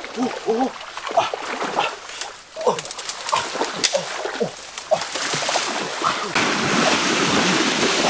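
Legs splashing and wading through a shallow creek, the splashing building up over the second half and loudest near the end. Short hooting animal calls repeat throughout.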